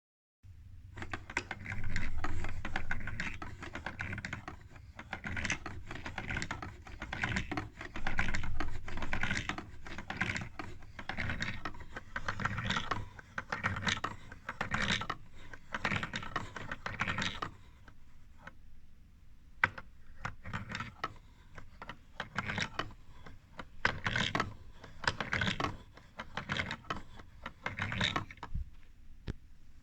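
Wooden automaton mechanism running: plywood gears with steel roller-pin teeth clicking and clattering as they mesh, and steel pusher rods knocking as they drop in their linear bearings. The clatter is dense with a low rumble for the first half, then turns to sparser clicks.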